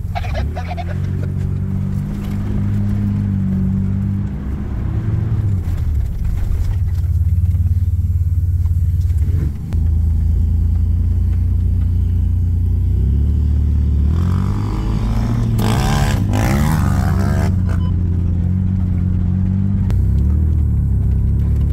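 Off-road vehicle engine running under way, a steady low drone whose pitch steps up and down several times with the throttle, with a short burst of rushing noise about fifteen seconds in.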